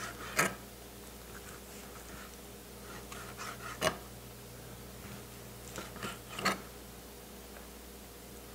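Chef's knife slicing seared pheasant breast on a cutting board: a handful of short, sharp knocks a few seconds apart as the blade meets the board, over a faint steady hum.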